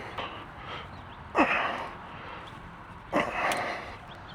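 A man grunting with effort twice, each a short falling exhalation, while straining to force a fuel hose onto its fitting.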